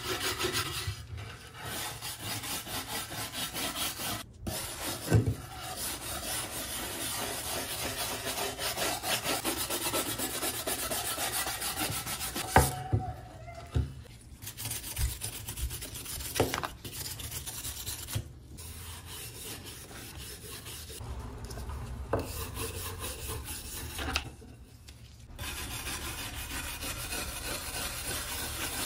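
A stiff hand brush scrubbed rapidly back and forth over a carved wooden chair part, a dense scratching broken by a few short pauses and occasional knocks.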